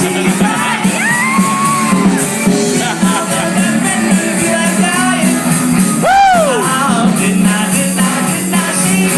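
Live rock band playing loudly, with shouted singing over guitars. A long pitch glide rises and falls about six seconds in.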